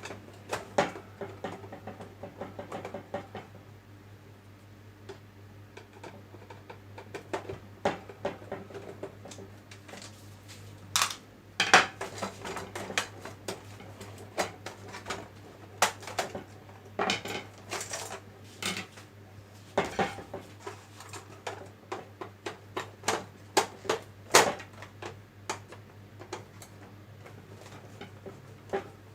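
Irregular clicks, taps and clatter of tools, screws and plastic casing parts being handled while an Epson projector is taken apart by hand, over a faint steady low hum.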